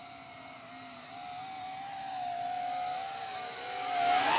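1031 skull quadcopter's motors and propellers whining steadily as it flies, the pitch wavering slightly. The whine rises and gets much louder near the end as the drone comes in close.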